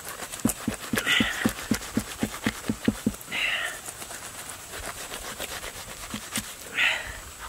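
A knife sawing through a ripe jackfruit along its fibrous core: a run of quick, even strokes, about four a second, for the first three seconds. Short scratchy rasps come every two to three seconds.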